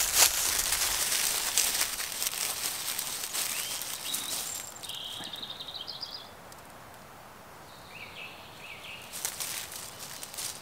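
Loud rustling and crackling for the first half, fading out by about five seconds in. Birds sing two short phrases in the quieter spell that follows, and a few crackles come back near the end.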